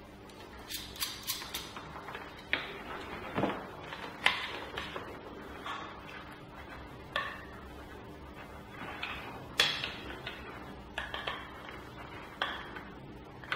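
Irregular small clicks, taps and short scrapes of hand work on a network cable and a plastic mounting plate as parts are fitted onto it.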